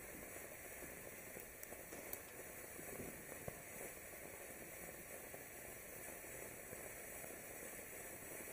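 Low-noise 'Silent Mode' ground fountain firework burning with a faint, steady hiss of spraying sparks and a few small crackles.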